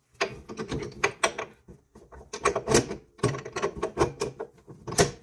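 Metal clamp pieces of a chop saw's vise being handled and fitted into place: a run of clicks, clanks and rattles, with a sharp metal knock near the end.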